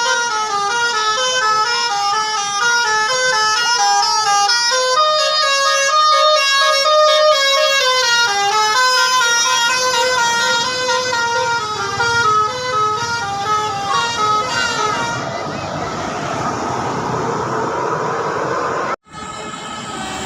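Indonesian 'telolet' bus horn, a multi-tone air horn, playing a long tune of quick stepped notes for about fifteen seconds. The notes then stop and the bus's engine and road noise carry on as a steady rush.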